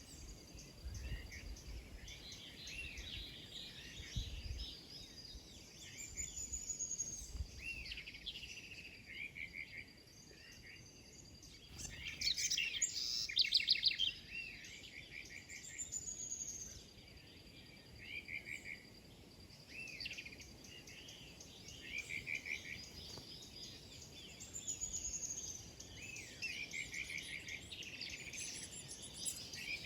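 Several small birds chirping and calling at once, short repeated chirps, quick trills and brief rising and falling notes overlapping throughout, with a dense loud flurry of calls a little under halfway through.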